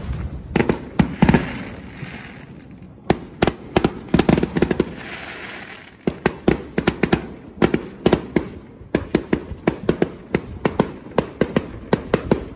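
Aerial fireworks bursting: a string of sharp bangs and crackles, with a short lull about two seconds in and a dense rapid run of reports through the second half.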